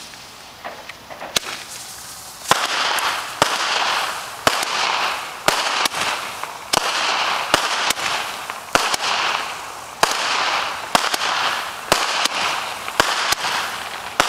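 Consumer fireworks going off in a steady series about once a second, starting about two and a half seconds in. Each shot is a sharp bang followed by a crackling hiss.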